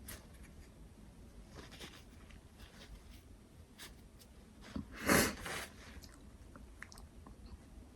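Faint crackles and rustles of a twisted-paper kochiyori being twirled inside a nostril, with one short, sharp burst of breath through the nose about five seconds in.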